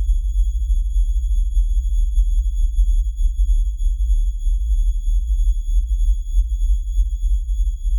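Dark ambient drone: a deep, fluttering low rumble with a thin, steady high-pitched tone held above it.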